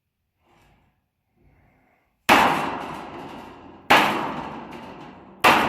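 A mallet strikes a sheet-steel forge hood three times, about a second and a half apart, to work a bend into the metal. Each blow rings out across the sheet and fades slowly.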